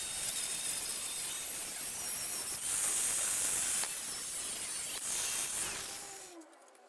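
Angle grinder with a thin metal-cutting disc cutting through an aluminium sliding-door guide rail: a steady, high-pitched grinding hiss. It stops and fades out about six seconds in, once the rail is cut through.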